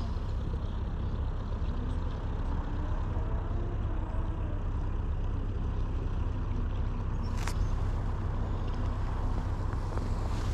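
Steady low rumble of a canal narrowboat's engine as the boat passes, with one sharp click about seven seconds in.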